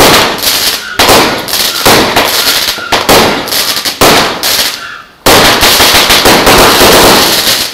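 Fireworks going off: loud bangs about once a second, each trailing into crackling, then after a brief lull a dense, continuous run of crackling bursts.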